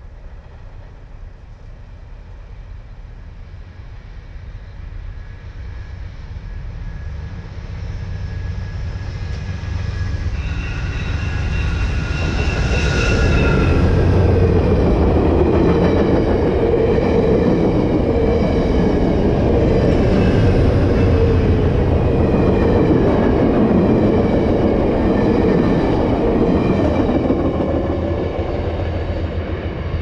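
Passenger train with stainless-steel cars approaching and running through the station at speed. The noise grows over the first dozen seconds, with a brief high ringing whine as the head end arrives. Then comes a long, loud passage of wheels rolling and clacking over the rails, easing off near the end as the train moves away.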